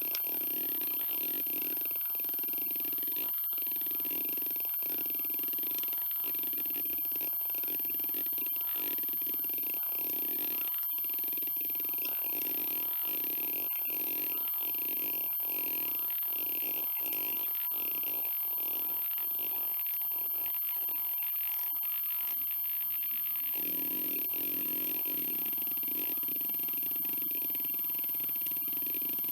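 Hitachi Deskstar 7K80 80GB IDE hard drive seeking in a repeating pattern driven by HDMotion, a steady mechanical whirr broken by regular beats about once a second. The beats come faster a little past the middle, then pause briefly before the running resumes.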